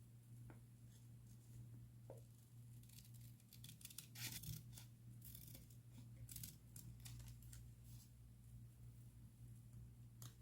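Faint crisp paper and masking-tape sounds from hand journal decorating: a cluster of short snips and rustles, loudest about four seconds in, over a low steady hum.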